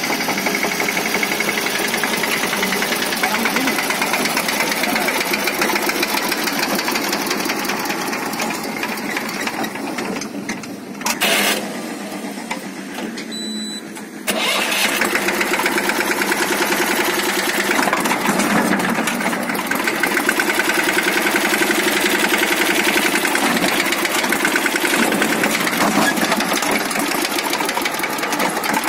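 Swaraj 717 mini tractor's single-cylinder diesel engine running with a fast, even chug. It drops quieter for a few seconds near the middle, then comes back at full level.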